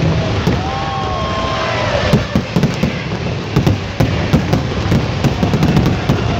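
Fireworks display: aerial shells bursting in a rapid barrage of sharp bangs and crackles over a steady din, thickest from about two seconds in.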